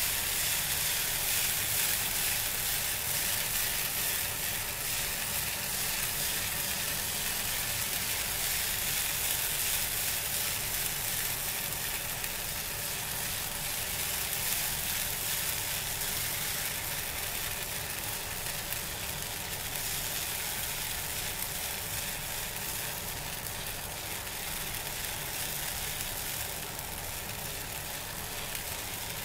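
Thin jalar (roti jala) batter sizzling on a hot flat griddle as it is poured in continuous thin streams, a steady hiss that eases slightly toward the end.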